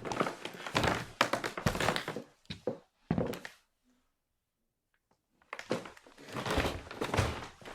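Footsteps: a run of quick, heavy thudding steps that stops about three and a half seconds in, leaves nearly two seconds of silence, then starts again.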